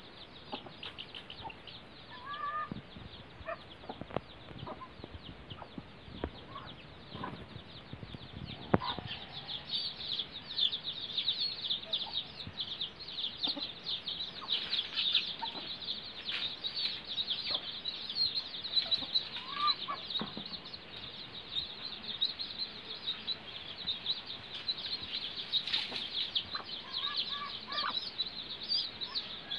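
A brood of twelve-day-old chicks peeping continuously in rapid, high cheeps, busier after the first several seconds, with a desi (country-breed) hen clucking now and then.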